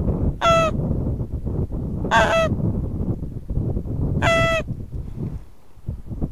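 Three short goose honks, each on a steady pitch and about two seconds apart, over a low wind rumble on the microphone.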